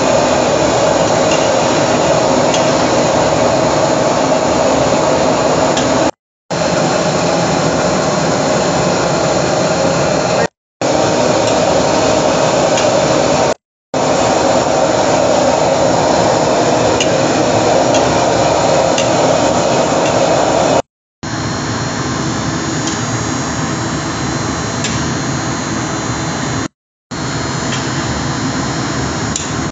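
Steady, loud roar of a commercial wok range's gas burner, with the occasional light scrape of a metal spatula in the wok. The roar cuts out briefly several times and comes straight back.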